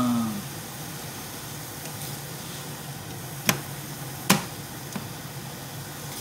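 Hamburger patties frying in a pan, a steady sizzle, with two sharp clicks a little under a second apart just past the middle.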